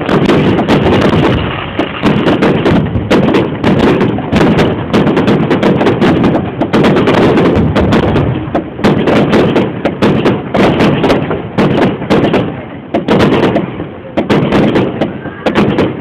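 Fireworks display: aerial shells bursting in a rapid, irregular string of loud bangs with hardly a pause.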